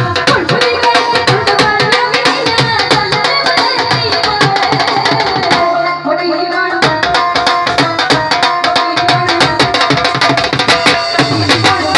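Live instrumental interlude of a Punjabi song played through a PA: tabla struck in a fast, steady rhythm over sustained keyboard chords. The drumming stops for about a second near the middle while the keyboard holds, then resumes.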